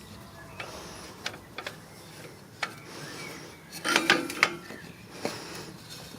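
A jack being worked against a damaged deep ripper: scattered metallic clicks and ratcheting, with a short cluster of louder metal clanks about four seconds in.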